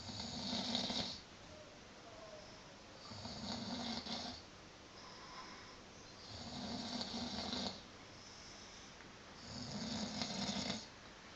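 A man snoring in deep sleep: four snores, each about a second long, coming roughly every three seconds.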